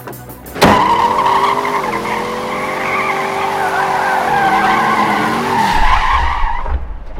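A car racing off at speed, its tyres screeching and its engine running hard, with the engine pitch dipping and climbing twice. The sound bursts in suddenly just under a second in and dies away near the end.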